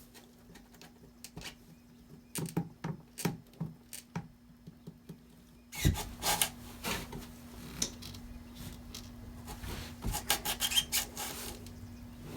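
Hand work on plumbing pipe and fittings: scattered light clicks and taps, then from about six seconds in a louder stretch of scraping and rubbing with quick taps, ending shortly before the end.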